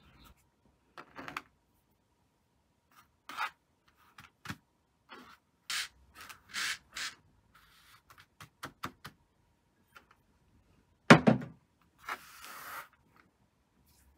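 Hands rubbing and smoothing a tatted lace doily against a cloth-covered tabletop: a string of short brushing rustles, with a louder rub and light thud about eleven seconds in and a longer rustle just after as the doily is picked up.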